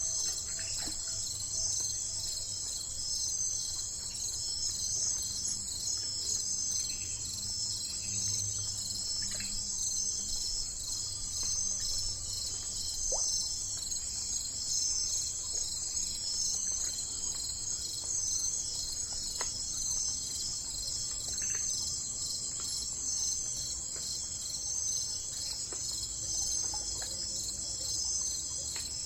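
A steady chorus of chirping insects, like crickets, with a fast even pulse, and a few faint, brief chirps scattered through it.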